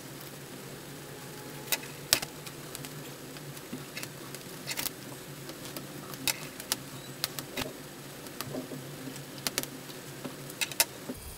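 Irregular small clicks and taps of a screwdriver and fingers against the inside of an opened MacBook Pro, prying the tight battery cable connector and the battery loose. The loudest clicks come about two seconds in and near the end, over a steady low hum.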